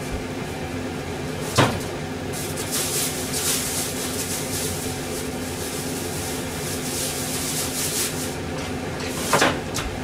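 A pan of daikon soup simmering on a gas stove gives a soft, crackling hiss over a steady kitchen hum. Two sharp knocks stand out, about a second and a half in and again near the end.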